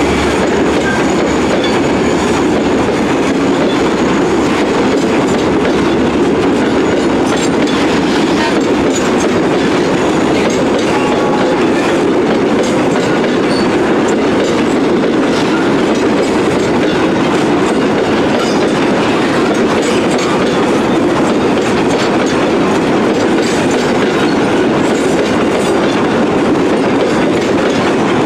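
Freight wagons loaded with cylindrical garbage containers rolling past at close range: a steady rumble of steel wheels on rail, with scattered clicks as the wheels cross rail joints.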